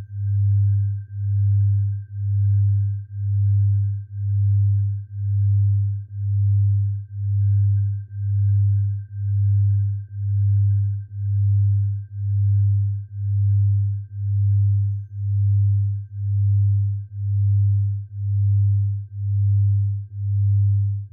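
Synthesized sound-therapy tones: a deep pure tone swelling and fading about once a second, with a faint steady high tone held above it.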